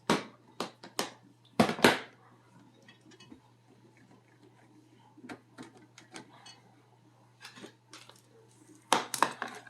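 Handling clatter as a borescope cable is worked and twisted in a dishwasher drain line: sharp knocks and clicks, loudest just after the start, about two seconds in and again near the end, with light ticks in between.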